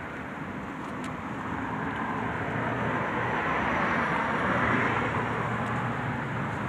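A passing vehicle: a steady rushing noise that swells to a peak about four to five seconds in, then eases a little, over a low rumble.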